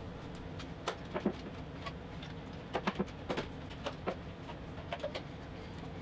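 Faint, scattered clicks and knocks of a glue-up: a walnut tabletop being seated on its dominoes and yellow one-handed bar clamps being put on and tightened.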